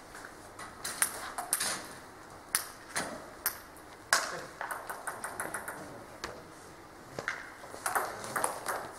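Table tennis ball clicking against paddles and the table in a rally: an irregular run of sharp pings and taps, the loudest about a second in and again about four seconds in.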